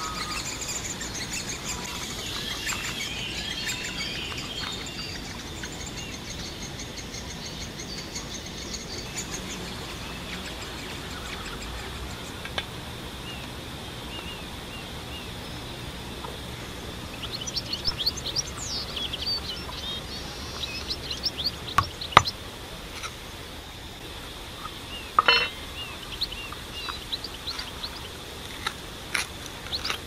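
Outdoor ambience of small birds chirping and twittering, with a faint steady high tone behind. There are bursts of chirps at the start and again past the middle, and a few sharp clicks in the last third.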